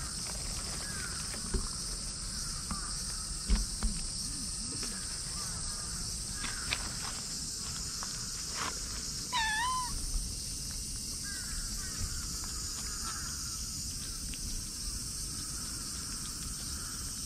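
Tabby cat meowing once, a short wavering meow about halfway through, over a steady high hiss like insects. A few sharp knocks come in the first four seconds.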